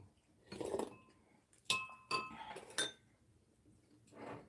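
Metal spoons and chopsticks clinking against ceramic bowls during a meal, three clear ringing clinks about two seconds in, between softer eating sounds.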